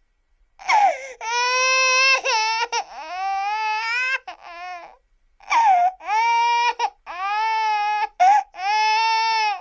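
A baby crying: a string of high-pitched wails, each about one to two seconds long, broken by short pauses for breath, with a shorter pause about five seconds in.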